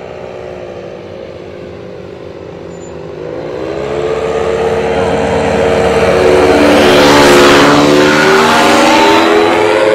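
Paramotor (powered paraglider) engine and propeller flying low past overhead: a steady drone that grows louder from about three seconds in, is loudest about seven seconds in as it passes, and drops slightly in pitch as it moves away.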